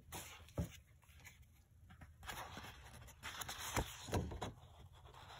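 Faint rustling and sliding of a sheet of patterned cardstock being handled, with a few soft knocks.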